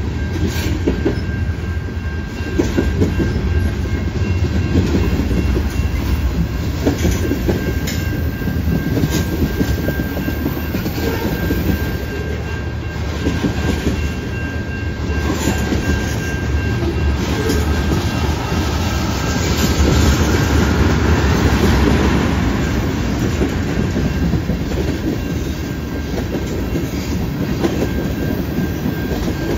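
Freight train cars, covered hoppers and tank cars, rolling steadily past: wheels rumbling and clicking over rail joints, with a faint steady high-pitched tone above the rumble.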